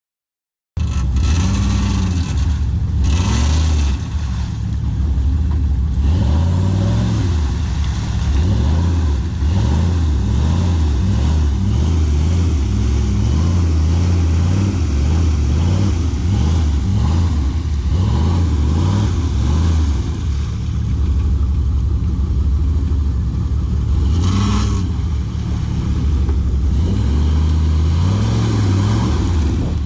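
Off-road vehicle engine running and revving up and down repeatedly as it drives. The sound starts abruptly just under a second in, and there are a couple of brief rushes of noise.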